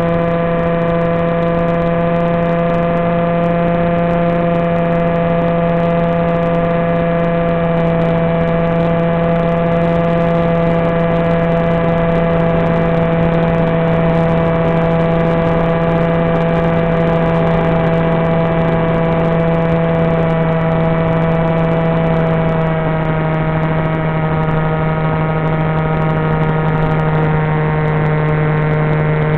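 Steady drone and whine of the flying wing's brushless pusher motor and propeller, a Turnigy 2826-2200kv, held at cruise throttle, heard through the narrow-band audio of the analog video feed. Its pitch dips slightly about two-thirds of the way through.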